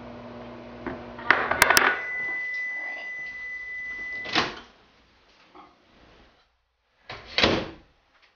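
Microwave oven humming, then stopping with a few sharp clicks and a steady beep about two seconds long, signalling the end of its heating cycle. The door clunks about four and a half seconds in, and there is another thud about seven and a half seconds in.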